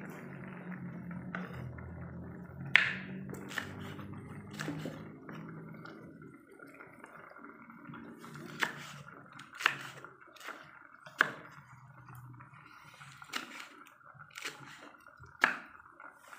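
Kitchen knife slicing green chillies on a wooden chopping board: sharp, irregular knocks of the blade striking the board, roughly one a second.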